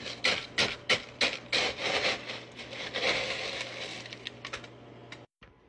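A scoop digging through nugget (pebble) ice in an ice maker's bin: a quick run of crunchy scrapes and rattles that eases off after about three and a half seconds.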